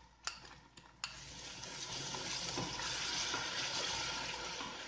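Yoghurt sizzling as it is stirred into hot oil-and-spice masala with a wooden spoon in a stainless steel pot. Two light knocks come first, then the sizzle starts sharply about a second in, builds and eases off near the end.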